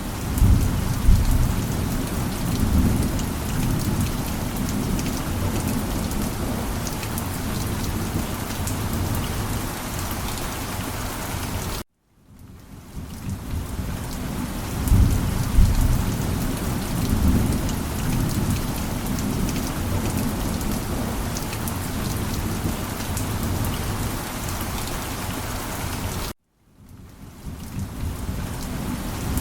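Heavy rain falling steadily, with deep rolling thunder rumbling underneath and swelling now and then. The sound cuts out to silence briefly twice, about twelve seconds in and again near the end, and fades back in each time.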